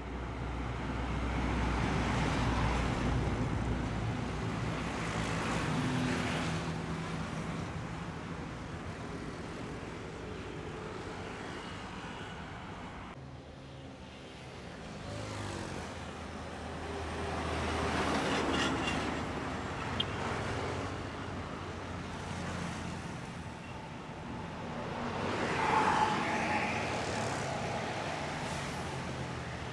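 Road traffic with heavy diesel trucks and other vehicles passing one after another, each pass swelling and fading over a steady low engine drone.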